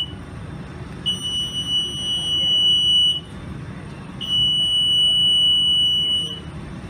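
An electronic alarm beeping a high steady tone, about two seconds on and one second off, repeating over a steady low rumble.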